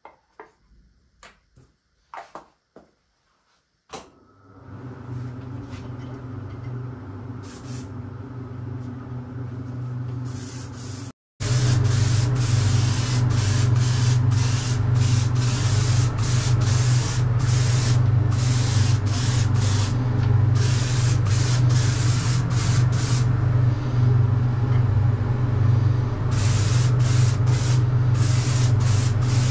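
Gravity-feed paint spray gun hissing as it sprays paint onto the shotgun's metal barrel and action parts, in a long run of passes broken by many brief pauses as the trigger is released. A steady low hum runs under it. Before it, a few light clicks, and the hum starts about four seconds in.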